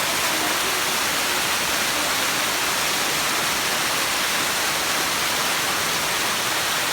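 Waterfall: falling water rushing steadily, an even hiss-like noise with no breaks.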